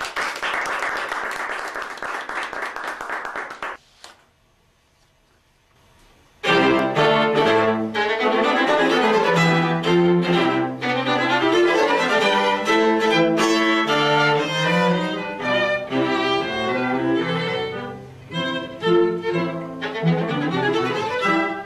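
Audience applauding for about four seconds, then a brief hush, then a classical chamber trio starts playing, with bowed strings carrying held notes.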